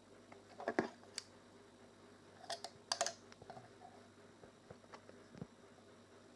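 A few light clicks and taps on metal from hands working the needle and thread at the presser foot of a vintage Frister & Rossmann sewing machine, in a short cluster about a second in and another around two and a half to three seconds in.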